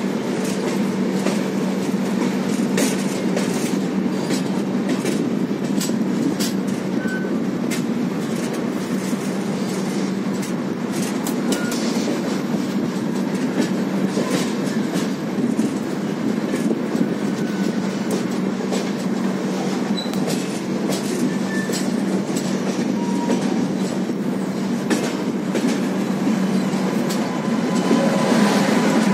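Express passenger train running, heard from an open coach door: a steady rumble of wheels on the track, with frequent sharp clicks and clatter as the wheels pass over rail joints. It grows a little louder near the end.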